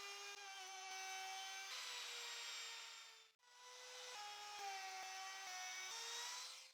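Electric router spinning a 25 mm Roman ogee bit, moulding the edges of cedar boards: a steady high motor whine that sags in pitch while the bit is cutting and rises again as it comes free. The sound drops out for a moment about halfway through.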